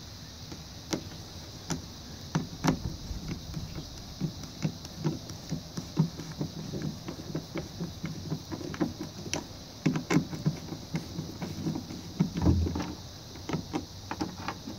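Hand screwdriver turning a screw through a plastic hinge into a plastic ice chest lid: an irregular run of short creaks and clicks, several a second, heavier toward the end.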